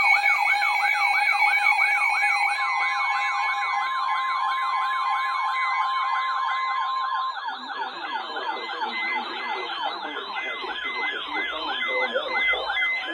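Several electronic emergency alert tones playing over each other: a siren-like tone sweeping upward about three times a second over steady alert tones. About seven and a half seconds in, a second set of sweeps and a pulsing high beep join in.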